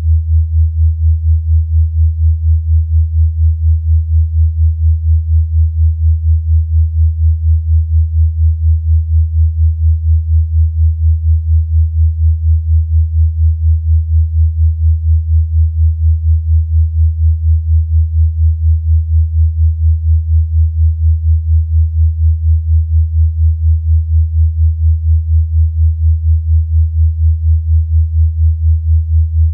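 A synthesized low sine tone, a steady pitch a little under 100 Hz, pulsing evenly about three times a second.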